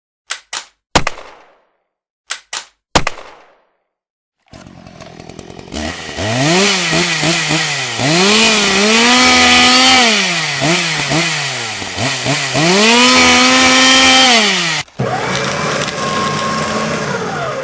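A pump-action shotgun is racked and fired twice: two quick clicks, then a blast, repeated. Then a two-stroke chainsaw starts, revs up and back down twice and cuts off suddenly. A steadier motor sound follows near the end.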